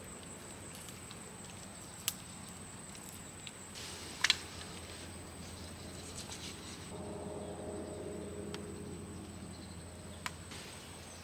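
Quiet outdoor ambience with a steady high-pitched insect drone, broken by a few sharp clicks or taps.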